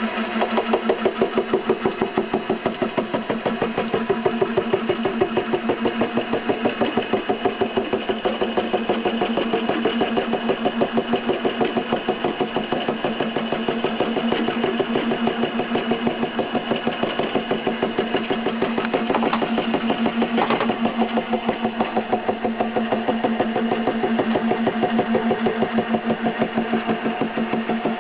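Milling machine running, its tooth-form cutter cutting a gear tooth into a plastic blank, with a quick, even pulsing of about four beats a second.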